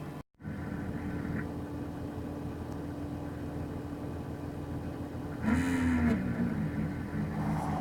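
Dell Optiplex 780 power-supply fan running at idle with a steady, annoying hum. The sound cuts out briefly near the start, and about five and a half seconds in a louder sound with a pitch that rises and falls passes over it.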